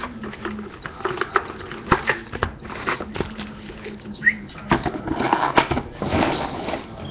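Cardboard and plastic packaging of a sealed trading card box being handled and opened: a run of clicks and taps, with a denser crinkling rustle about five to six and a half seconds in.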